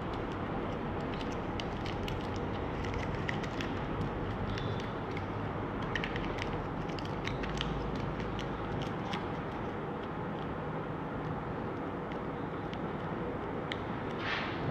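Aluminium foil perm wraps crinkling as hair strands are twisted and folded into them: many small, quick crackles, with a slightly longer rustle near the end, over a steady background hiss.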